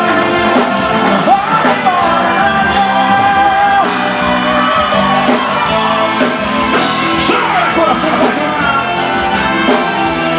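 A live romantic forró band playing with a singer holding long, sliding notes, loud and steady throughout.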